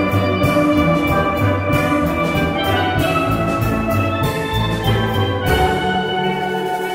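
Instrumental ensemble music: held chords over a bass line, with steady percussion strokes. The bass drops out near the end.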